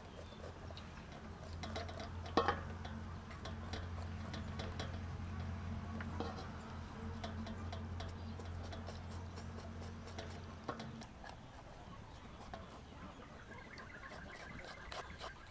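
Small knife scraping and trimming fat from a raw pig stomach over a metal basin: a run of small wet clicks and ticks, with one sharp knock about two seconds in. A steady low hum runs underneath and stops about eleven seconds in.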